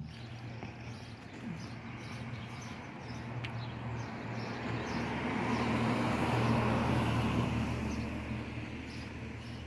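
A road vehicle passing on the street, its noise building to a peak about six to seven seconds in and then fading, over a steady low hum.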